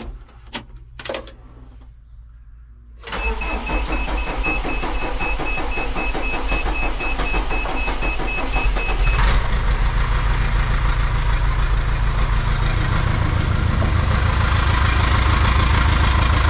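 A John Deere 4039T four-cylinder turbo diesel in a 310D backhoe is cranked by the starter and started with fresh pencil injectors, after a few clicks of the key. A high warning beep repeats over the cranking. About nine seconds in the beep stops and the engine settles into a steady, deeper run that grows louder.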